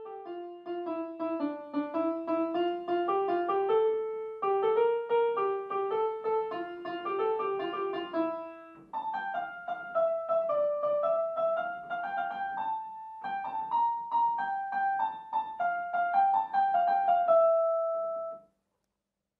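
Portable electronic keyboard playing a simple melody in a piano voice, with lower notes beneath it, in a few short phrases; it ends on a held note about 18 seconds in.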